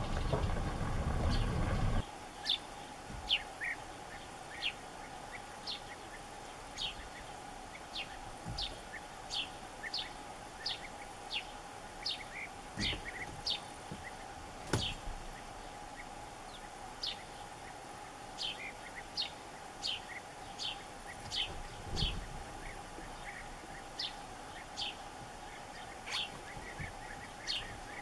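European bee-eaters calling from a treetop: short high calls repeated roughly once a second, several birds overlapping at times. A low rumble ends about two seconds in.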